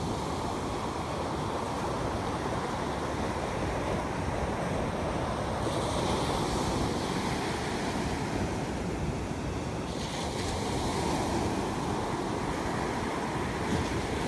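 Ocean surf washing onto a beach, a steady rushing noise that turns hissier for a few seconds in the middle, with wind on the microphone.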